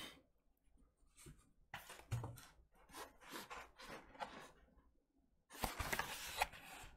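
A 12-inch vinyl record in a plastic-wrapped card sleeve rubbing and scraping against a cardboard mailer box as it is slid out and handled. It comes in two runs of short scrapes, with a brief pause about five seconds in.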